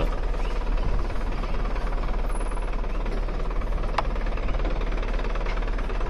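Jeep driving over a rough off-road track: a steady low engine and road rumble, with one sharp click about four seconds in.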